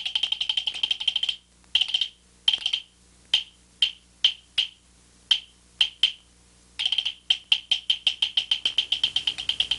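Gezaixi opera percussion: a high-pitched struck instrument played in a fast roll. About a second in the roll breaks into single ringing strokes, spaced apart and gradually quickening. From about seven seconds it is a fast roll again.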